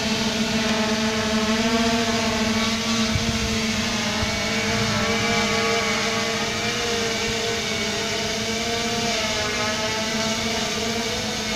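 3DR Solo quadcopter hovering, its four motors and propellers giving a steady buzzing hum whose pitch wavers slightly.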